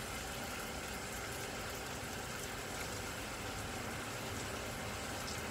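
Beef pieces sizzling steadily as they fry in a non-stick pot, being browned before the other ingredients go in.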